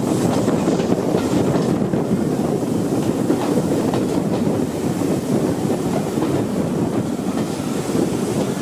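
Heritage passenger train running along the track: a steady rumble of wheels on rails.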